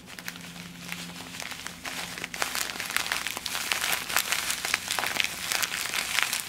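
Dry instant mashed potato flakes being poured from a pouch onto a plate: the pouch crinkles and the flakes hiss and tick as they land, getting louder after about two and a half seconds. A faint low hum underneath stops about two seconds in.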